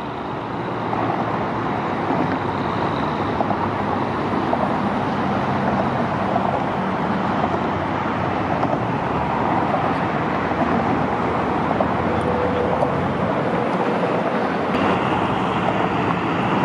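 Steady rumble of motor traffic, swelling slightly over the first couple of seconds. A faint high whine comes in near the end.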